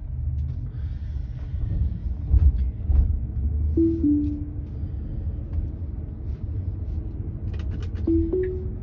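Tesla Model 3 cabin with low road rumble and a couple of thumps. A falling two-tone chime sounds about four seconds in as Autopilot/FSD Beta disengages, and a rising two-tone chime sounds near the end as it engages again.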